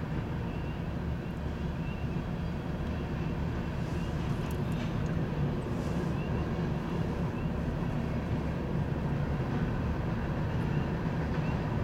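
Freight train of covered hopper cars rolling past at speed: a steady low rumble of steel wheels on the rails, with a few faint clicks around the middle.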